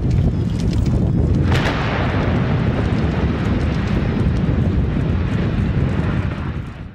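Mine winding tower collapsing after explosive demolition: a loud, heavy rumble, with a harsher crashing surge about a second and a half in as the structure comes down, dying away near the end.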